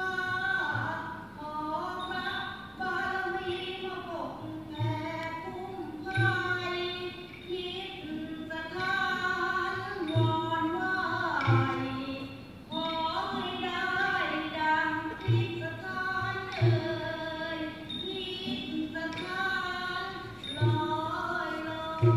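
A woman singing a Thai folk song in long, bending held notes, with short low thumps beating along about every second or so.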